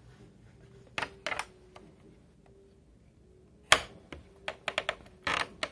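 Push-button switches on the front panel of a vintage Philips RH707 receiver clicking as they are pressed: a dozen or so sharp clicks in irregular groups, the loudest a little past the middle.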